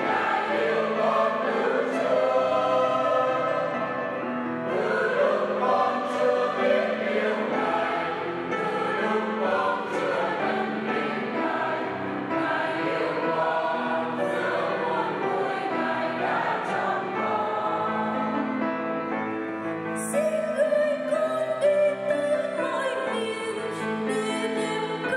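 Mixed church choir of men's and women's voices singing together in harmony, sustained notes moving steadily with no break.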